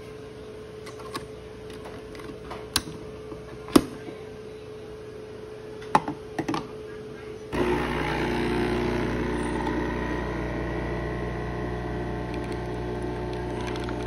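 A few sharp clicks as a capsule coffee machine is handled and closed, then about halfway through its pump starts suddenly with a steady mechanical hum and runs on while it brews.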